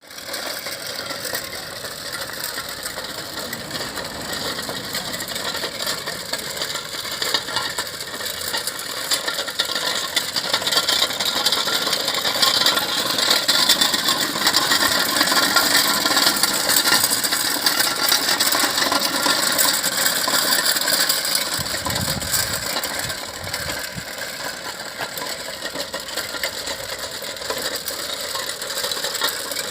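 Zettelmeyer three-wheel road roller driving forward with its water cart in tow, giving a continuous mechanical clatter of gears and rattling parts. It grows louder toward the middle and eases off again.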